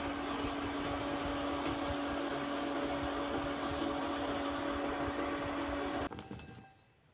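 Steady whirring hum of a fan-like machine with a low steady tone, cutting off about six seconds in and dying away to near quiet.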